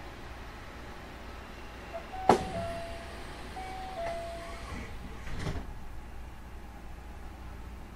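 Hankyu 9000 series train's doors closing, heard from inside the car: a sharp click about two seconds in, a two-note chime repeating for about two seconds, then a thud as the doors shut, over the steady hum of the stationary train.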